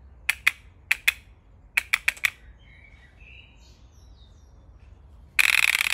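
Wooden select-fire rubber band gun's release mechanism clicking sharply as it fires: two pairs of single shots, then a quick run of four. Near the end comes a louder, fast continuous rattle as it fires full-auto. Birds chirp faintly in between.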